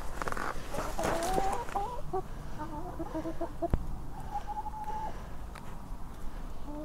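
Domestic hens clucking quietly as they crowd round and peck at a slice of bread held out by hand, with one longer, held call about four seconds in. A single sharp tap sounds just before that.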